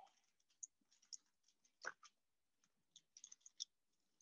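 Near silence with faint scattered clicks and scrapes of a carving knife cutting through a roast chicken's thigh joint on a foil-lined sheet pan. The clearest is a short scrape about two seconds in, followed by a quick run of small clicks.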